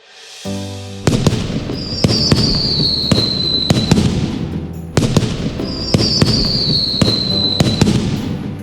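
Intro music with sustained low chords and fireworks-like sound effects: sharp bangs about once a second and a high, falling whistle heard twice. The whole pattern repeats after about four seconds.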